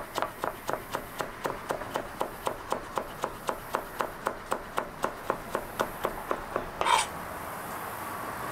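Chef's knife rock-chopping a carrot into thin slices on a plastic cutting board: an even run of light knocks about four a second. It ends with one louder knock about seven seconds in, and then the chopping stops.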